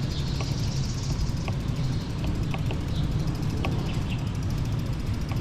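Wind buffeting the action camera's microphone and tyre rumble from a mountain bike being ridden, with scattered light ticks.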